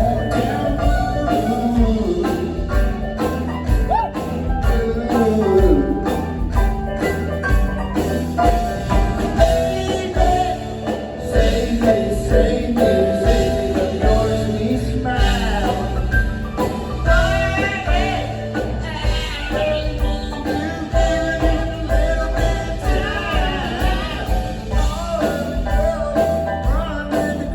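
A rock band playing a blues-rock song live: electric guitars over bass and drums, with bending lead lines in the middle.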